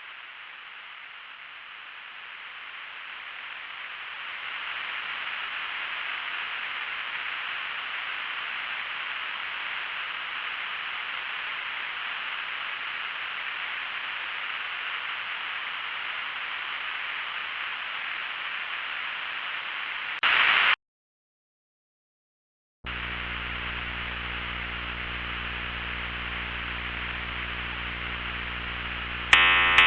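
Television-style static hiss that swells over the first few seconds and then holds steady, ending in a brief louder burst and a cut to two seconds of dead silence. After that a steady low electronic hum with many even overtones, and just before the end a loud pulsing tone begins.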